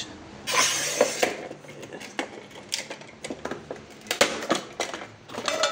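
Bosch PTC 640 manual tile cutter working a 7 mm ceramic tile. A short scratchy scrape about half a second in, then a run of sharp clicks and knocks from the cutter's handle, breaker and tile.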